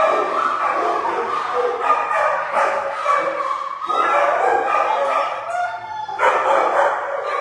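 Shelter dogs in kennels barking and yipping, overlapping with no break.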